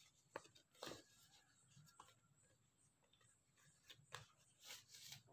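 Faint rustling and crinkling of banana leaves as they are handled and folded around dough, in a few short scattered bursts.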